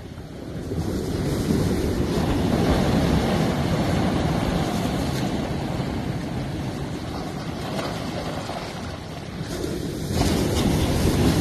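Sea surf washing in over and around large rounded boulders: a rushing noise of foaming water that swells about a second in, eases off, then surges again near the end as the next wave comes in.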